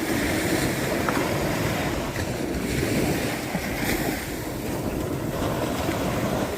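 Ocean surf washing onto a sandy beach in a steady wash of noise, with wind buffeting the microphone.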